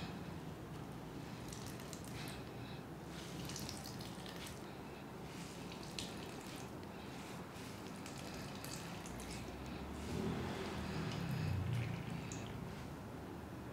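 Starchy water wrung from grated potato in a cloth, trickling and dripping into a plastic bucket in irregular small splashes, over a low steady hum.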